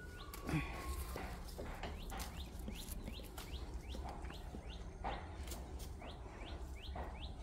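A small bird chirping steadily, one short rising note about three times a second, with leaves rustling now and then as bean vines on a trellis are handled.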